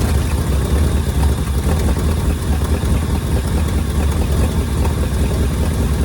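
Ford Thunderbird engine running at a steady idle, just brought back to life after sitting, on a little gas poured in and temporary wiring.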